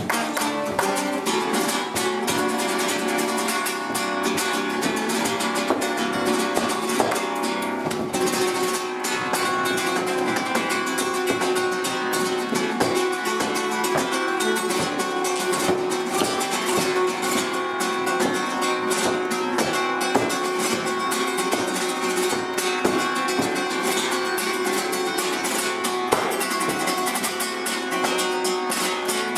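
Flamenco guitar playing, a steady run of quick strummed and plucked strokes.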